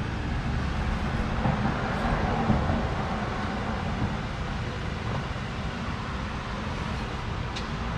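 2003 Mustang SVT Cobra's supercharged 4.6-litre DOHC V8 idling steadily while the car is checked for a noise when the clutch pedal is pressed.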